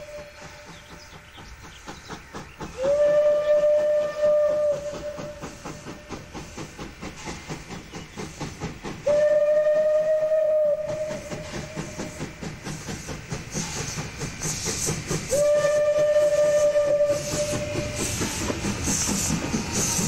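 Steam locomotive blowing its whistle in three separate blasts of about two seconds each, one steady tone, while its exhaust chuffs in a quick rhythm. The chuffing and steam hiss get louder near the end as the engine draws level.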